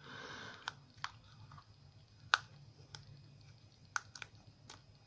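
Sticky adhesive tape being peeled and unwound by hand from a key: a short rustle at the start, then scattered sharp little clicks and crackles, the loudest a little over two seconds in.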